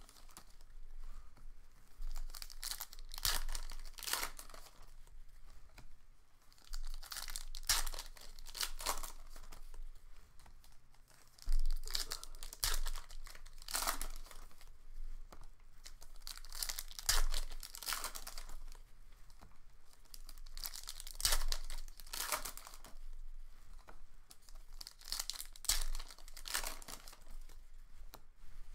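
Plastic wrapping of Panini Contenders football card packs and box being torn and crinkled by hand, in irregular rustles, with a few dull knocks.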